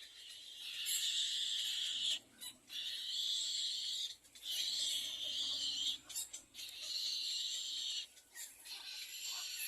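Little egret nestling giving harsh, raspy begging calls for food: four long calls of about a second each with short breaks between them, then a fainter one near the end.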